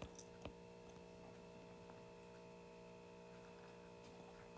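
Near silence: a faint steady electrical hum, with a few light taps of a stylus on an iPad screen in the first half second.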